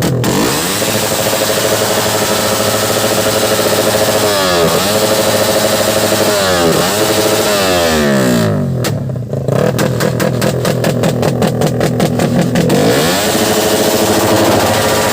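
Racing motorcycle engine revving hard, its pitch climbing and dropping several times as it runs through gear changes, with a short dip about halfway and a rapid stuttering rattle through the second half.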